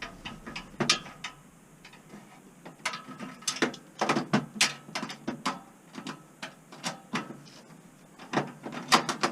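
Ratcheting hand driver clicking in irregular bursts as screws are backed out of the furnace's lower burner assembly.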